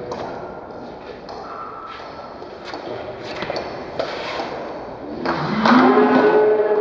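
Table tennis rally: a celluloid ball struck by rubber-faced rackets and bouncing on the table, a sharp tick every half second to a second. Near the end a long, drawn-out shout, louder than the rally, as the point ends.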